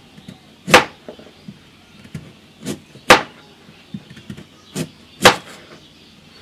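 Kitchen knife slicing through a raw carrot and striking a plastic cutting board: three loud, sharp chops about two seconds apart, with softer crunches between them.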